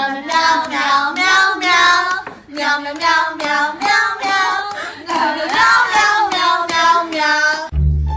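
A high voice singing a tune in short phrases, with slightly wavering held notes, stopping just before the end.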